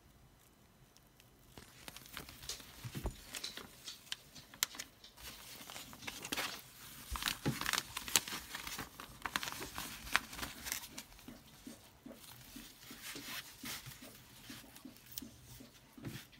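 Clear embossed plastic vacuum sealer bag film crinkling and rustling as it is handled and turned on its roll, with many irregular sharp crackles and clicks. It starts about a second and a half in.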